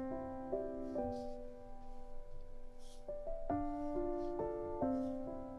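Background piano music: a gentle melody of struck notes and chords that ring and fade.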